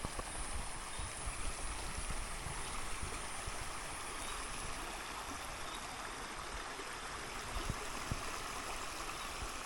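Fast-flowing forest stream swollen by runoff water, a steady rush of water.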